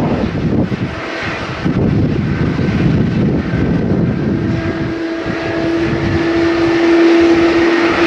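Jet airliner engines running at taxi power, a steady whine over a rough low rumble. A low steady tone comes in about halfway through and grows louder near the end.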